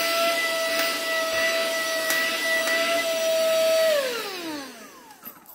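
Small rechargeable handheld vacuum cleaner running with a steady whine and rush of air. About four seconds in it is switched off, and its motor pitch falls as it spins down and fades away.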